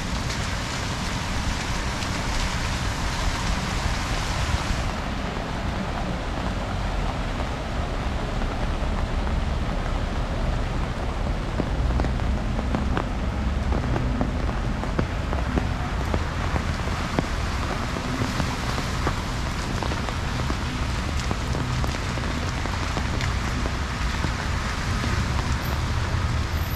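Heavy rain falling and pattering on surfaces, a dense steady hiss full of small drop ticks, over a low rumble of city traffic. The highest part of the hiss softens about five seconds in.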